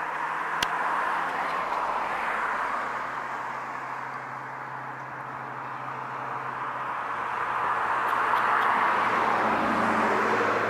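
Outdoor road-traffic noise: a hiss that swells twice, like vehicles passing, over a low steady hum, with one short click about half a second in.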